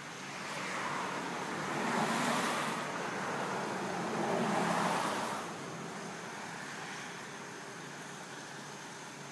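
Road traffic passing: a rush of tyre and engine noise swells about half a second in, peaks twice, and fades away about five and a half seconds in.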